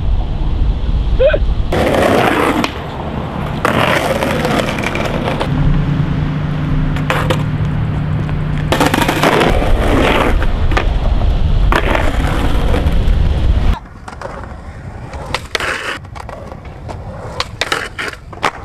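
Skateboard wheels rolling loudly over rough asphalt, with sharp clacks from the board's pops and landings. About two-thirds of the way through the sound drops suddenly to a quieter stretch of scattered board clacks.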